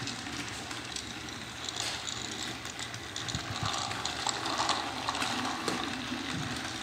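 Battery-powered toy train engines running along plastic track: a steady motor whir with small clicks and rattles.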